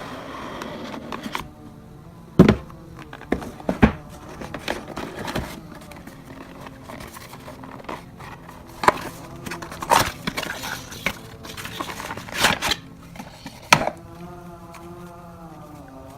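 Packaging and parts being handled during an unboxing: a string of irregular sharp knocks and clicks with some crinkling, over faint background music. A held, pitched tone comes in near the end.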